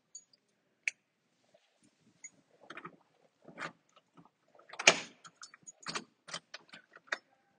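A run of irregular clicks, taps and light knocks of things being handled, the loudest a knock about five seconds in.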